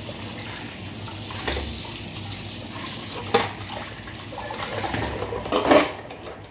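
Kitchen tap running into the sink while plates are washed by hand, with a sharp clink about three seconds in and a louder clatter of dishes near the end.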